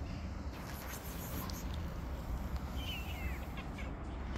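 Low steady rumble of outdoor street background, with a short, high, wavering call about three seconds in.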